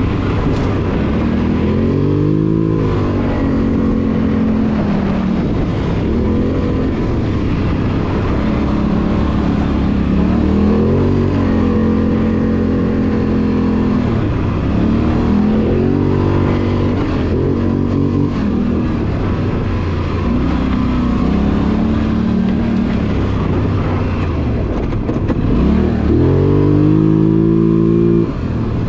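2021 Polaris Sportsman 850 ATV's twin-cylinder engine, heard from the rider's seat, revving up and easing off again and again as it is ridden, with a strong climb in revs near the end.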